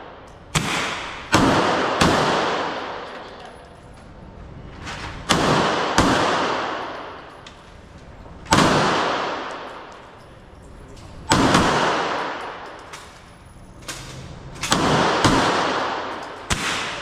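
Gunfire on a shooting range: about eleven single shots in irregular groups of one to three, each sharp crack trailing off in a long echo.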